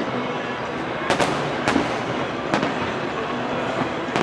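Aerial fireworks shells bursting: three or four sharp bangs about a second apart over a steady wash of noise.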